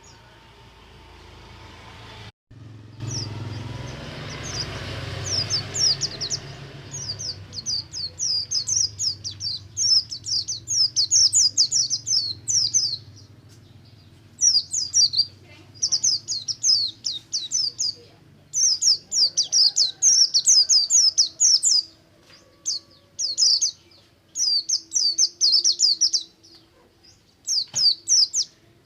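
Pleci (white-eye) singing its ngalas song: fast, high twittering runs in phrases of one to two seconds with short gaps, starting about three seconds in. A low hum and hiss sits under the first few seconds.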